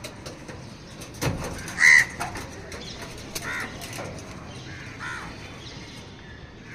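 Crows cawing: a few separate caws spaced a second or two apart, the loudest about two seconds in, with a short knock just before it.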